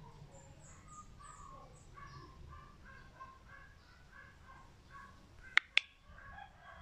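Faint birds calling, a quick run of short repeated calls. Near the end come two sharp clicks in quick succession.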